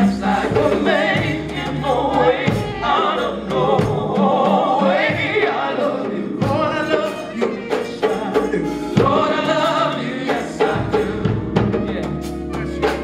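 Gospel choir singing with live band accompaniment: voices carrying the melody over a steady bass line and regular drum hits.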